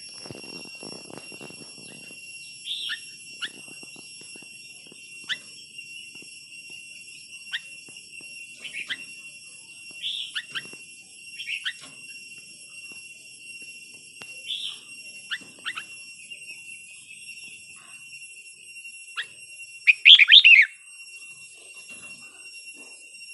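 Red-whiskered bulbul giving short sharp chirps every second or two, then a loud burst of quick song notes about twenty seconds in. A steady high-pitched whine runs underneath, with a brief rustle at the start.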